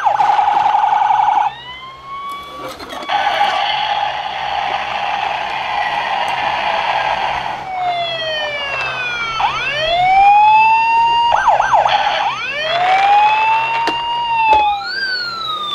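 Battery-powered toy rescue truck's electronic siren sounds, set off by pressing the boat on its roof, cycling through several patterns: a fast warble, a steady buzzy tone, then long rising and falling wails and quick yelps.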